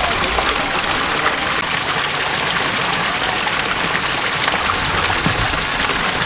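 Water gushing steadily from several PVC taps into seafood holding tanks, splashing into the water below.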